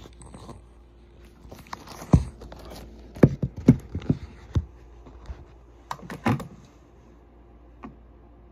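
Handling noise close to the microphone: a run of about eight sharp knocks and taps as cables and a plastic plug are handled and bumped. The loudest come in the first half, then a short cluster and one light tap near the end.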